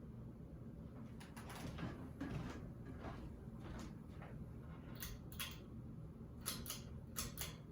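A series of light, sharp mechanical clicks and taps, several coming in quick pairs near the end, over a faint steady hum: the Hunter ceiling fan's switch being worked as the fan is started on low speed.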